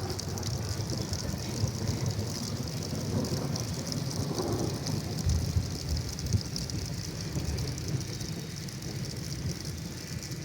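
Thunder rumbling long and low, without a break, over a steady hiss of heavy rain on a metal roof.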